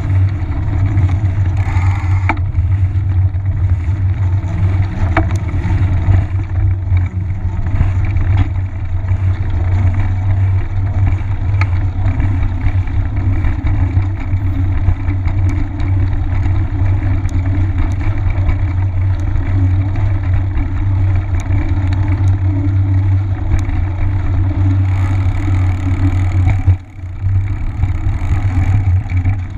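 Steady low rumble of wind buffeting and knobby fat-bike tyres rolling on pavement, picked up by a camera mounted on the moving bicycle, with scattered light clicks and rattles from bumps. The rumble briefly drops out near the end.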